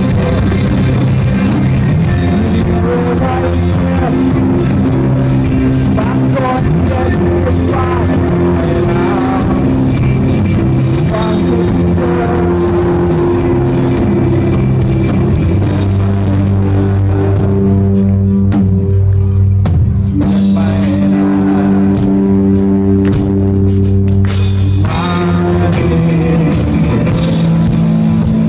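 Rock band playing live through a PA: electric bass, electric guitar and drum kit, with a sung vocal over the top.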